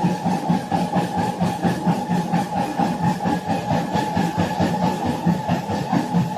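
A machine or engine running steadily, with a fast, even pulsing and a steady whine above it.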